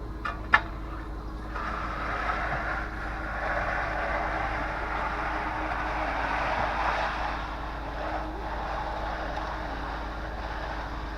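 A concrete truck's engine hums steadily under a long, rough rushing and scraping of wet concrete work, which starts about a second and a half in and stops near the end. Two sharp knocks come in the first second.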